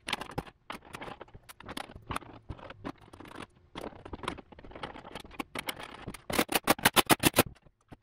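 A plastic door module cover being handled and pressed into place on a Nissan Rogue's inner door panel: scattered knocks, scrapes and clicks. Near the end comes a quick run of about ten sharp clicks, roughly nine a second.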